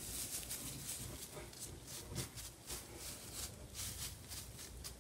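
Dry shredded-paper bedding rustling and crinkling as a gloved hand spreads it over a worm bin, in a rapid run of short rustles.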